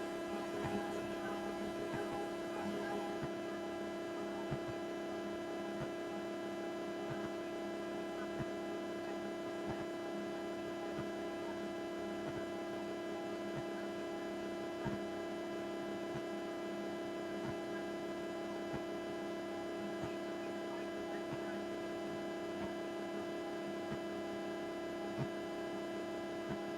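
Steady electrical hum with a buzz of many overtones, unchanging throughout, with a few faint clicks.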